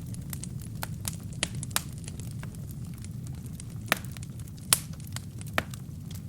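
Wood fire burning in a fireplace: a steady low rumble of flames with irregular sharp crackles and pops from the burning wood and kindling, two of them louder about four and four and a half seconds in.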